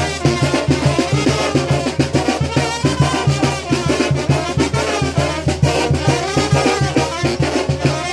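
Brass-led Latin dance music playing loudly, with trumpets and trombones over a steady beat.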